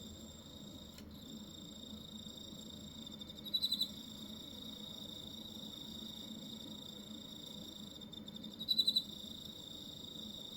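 Crickets calling: a steady, unbroken high trill, with a louder short pulsed chirp twice, about three and a half seconds in and again near nine seconds.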